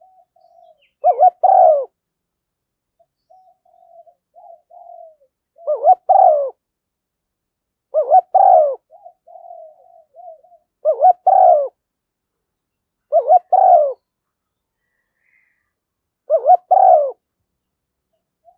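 Spotted dove cooing: six loud phrases a few seconds apart, each a short note followed by a longer doubled coo, with softer, quieter coos in between.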